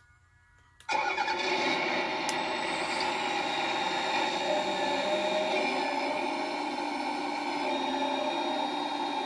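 Servonaut SMB sound module in a 1/12 scale RC hydraulic excavator playing a simulated diesel engine start about a second in, then the engine running steadily.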